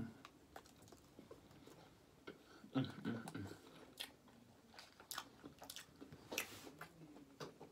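Close-up mouth sounds of a person biting and chewing a large cheesy burrito: scattered wet smacks and small clicks. A short hummed 'mm' comes about three seconds in.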